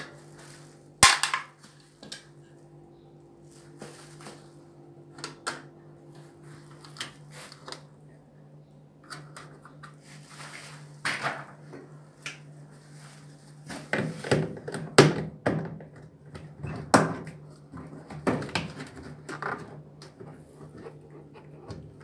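Screwdriver and hands clicking, knocking and scraping against the plastic detergent drawer housing and sheet-metal front panel of a washing machine as it is taken apart. There are irregular sharp clicks, most clustered a little after halfway, over a steady low hum.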